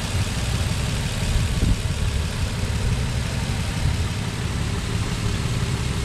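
Nissan Frontier's 4.0 V6 engine idling steadily while it warms up. It runs really quiet on freshly replaced timing chains and tensioners.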